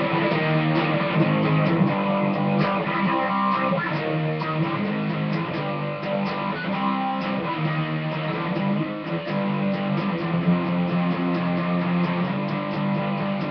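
Electric guitar strummed through a steady progression of sustained chords, with frequent strum strokes throughout.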